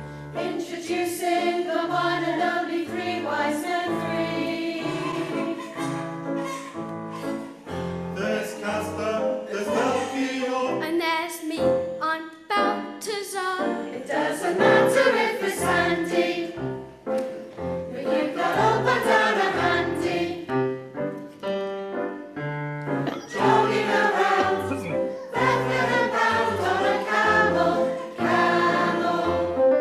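A church choir singing a carol, several voice parts together with held low notes beneath.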